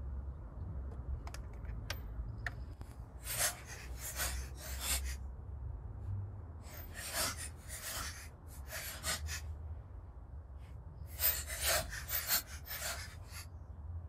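Ratcheting torque wrench tightening spark plugs to 20 foot-pounds, in three runs of quick ratchet strokes with pauses between.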